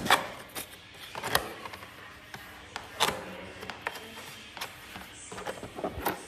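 Cardboard box being opened by hand: irregular knocks, scrapes and rustles of the cardboard flaps and a paper instruction manual being handled, with the sharpest knocks at the start and about three seconds in.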